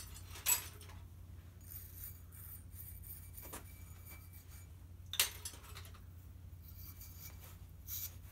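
Faint clinks and ticks over a low steady hum, with two sharper clicks about half a second in and about five seconds in.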